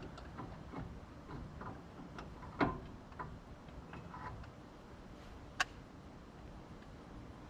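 Irregular light clicks and knocks of parts and tools being handled while a part is fitted to the truck, with a louder knock about two and a half seconds in and a sharp click about five and a half seconds in.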